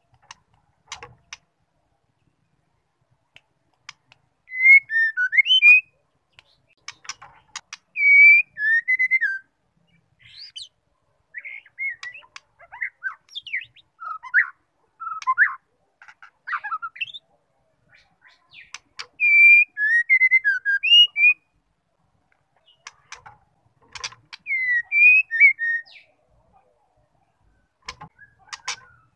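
White-rumped shama singing short phrases of whistled notes that glide up and down, a phrase every few seconds. Clusters of sharp clicks come between the phrases.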